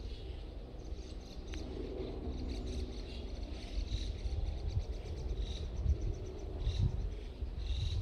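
Forest ambience: faint, short high chirps repeating every second or so over a steady low rumble that gets a little louder and uneven in the second half.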